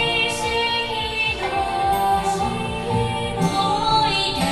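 Yosakoi dance music played over a sound system, a woman singing over a steady, driving beat.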